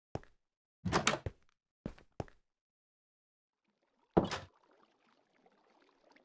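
A series of separate knocks and thuds, the loudest about four seconds in, followed by faint rustling.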